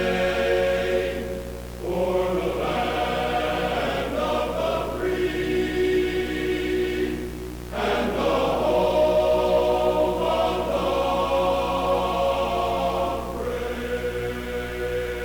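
Choral music: sustained chords sung in long phrases, each dipping briefly about every six seconds, over a steady low hum.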